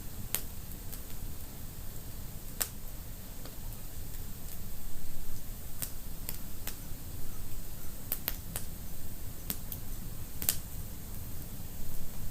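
Wood fire in a fireplace crackling, with sharp pops at irregular intervals (a quick cluster about eight seconds in) over a steady low rumble.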